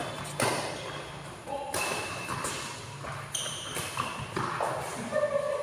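Badminton doubles rally: rackets strike the shuttlecock several times, about once a second, while court shoes squeak on the court floor.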